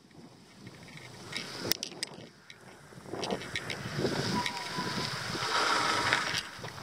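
Bicycle rolling along a dirt road, with tyre noise on the grit and wind on the microphone, plus scattered sharp clicks and rattles. It grows louder about halfway through.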